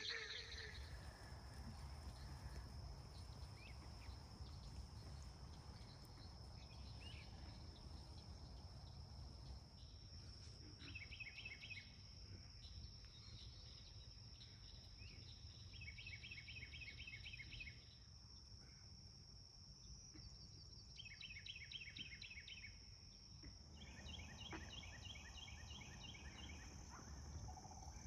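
Faint outdoor ambience dominated by a steady high-pitched insect drone, with a low rumble underneath. In the second half, a short, fast trill of repeated notes sounds four times.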